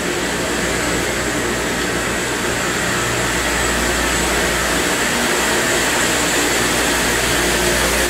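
Electric-motor-driven aeration blowers running steadily in a plant's blower room, a loud continuous rushing of air over a low hum and a high whine, growing slightly louder. The blowers supply oxygen to the aeration basins of a sewage treatment plant.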